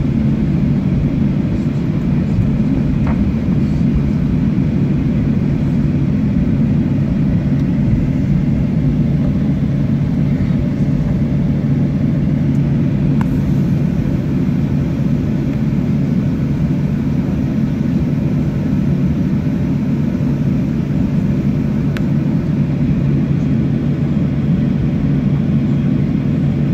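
Steady cabin noise of a jet airliner taxiing, heard from inside the cabin: a continuous low rumble with a steady engine hum.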